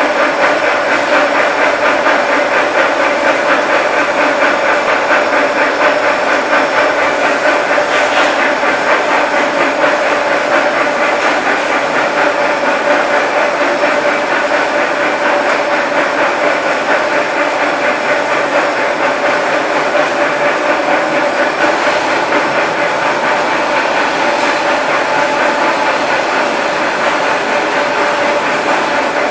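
Polypropylene filament extrusion line running: steady, loud machine noise with a constant mid-pitched tone and a fast, even flutter.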